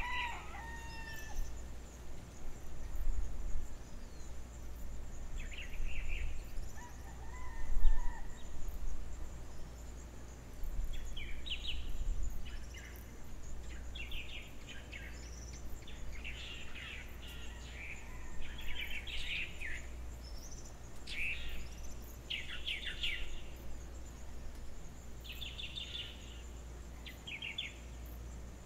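Outdoor ambience with birds chirping in short, scattered bursts over a steady low rumble.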